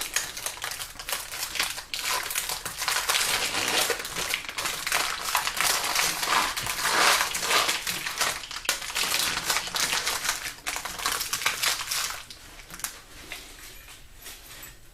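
Masking tape being peeled off a bundle of wiring-harness wires: a dense crackling and crinkling that dies down about twelve seconds in.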